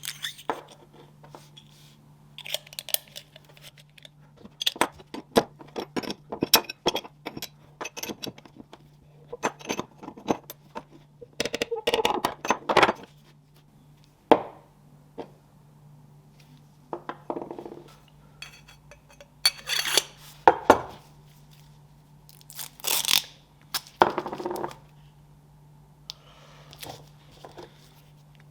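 Small metal parts and tools clinking, knocking and scraping on a workbench in irregular bursts, with a few longer scrapes. A faint steady hum runs underneath.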